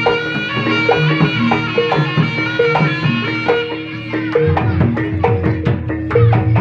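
Traditional folk music: a reedy wind melody held over a drum pattern, giving way about four seconds in to quick struck percussion notes.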